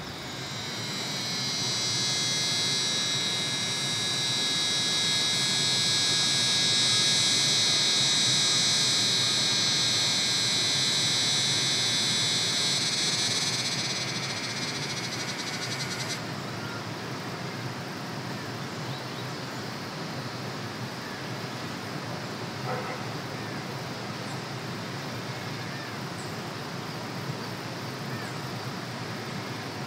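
A loud, high, buzzing chorus of forest animals over a steady rush of falling water from a waterfall. The chorus swells in over the first couple of seconds, fades from about thirteen seconds in and stops about sixteen seconds in, leaving only the water's rush.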